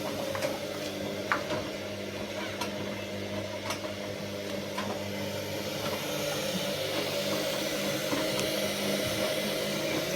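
Washing machine running with a steady motor hum, growing a little louder about six seconds in, with a few faint clicks. The machine is leaking water onto the floor.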